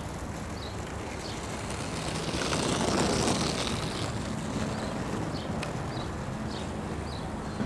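Outdoor ambience: a steady rushing noise that swells and fades again between about two and four seconds in, with a few short high chirps scattered through it.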